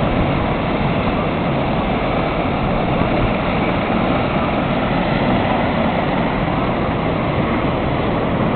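Steady, dense engine noise of an airport apron where helicopters and ground vehicles are running, a continuous roar with no distinct rhythm.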